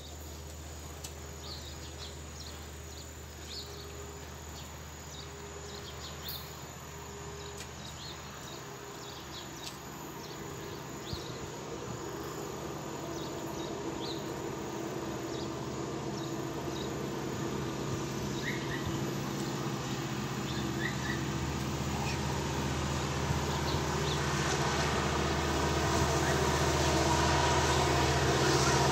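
Distant SD80 diesel locomotive leading a loaded iron-ore train, its low engine drone growing steadily louder as the train approaches. A few short high chirps sound over it.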